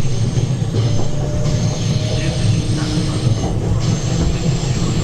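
Running noise inside a 651 series electric multiple unit in motion: a steady low rumble of wheels on rail, with faint thin tones that come and go.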